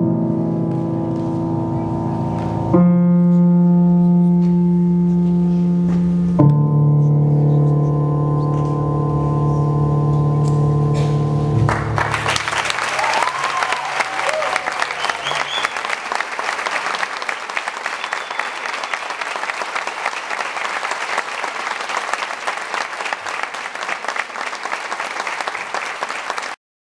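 The music ends on three long held chords, each new chord struck a few seconds after the last. Then audience applause begins about halfway through, with a whistle early in it, and continues until the sound cuts off suddenly near the end.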